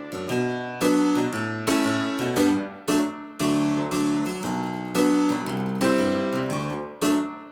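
Background music: a keyboard instrument playing a melody of plucked-sounding notes, a new note or chord about every half second.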